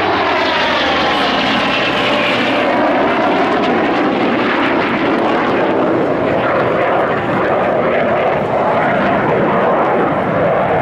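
Heritage Flight formation of an F/A-18 Super Hornet and a Grumman F8F Bearcat piston fighter passing by: a loud, steady jet roar, with a whine falling in pitch over the first few seconds as they go past.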